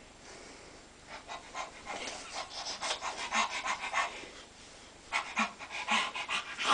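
A baby's quick, breathy panting huffs in excited play, about five a second, in two runs with a short pause between them.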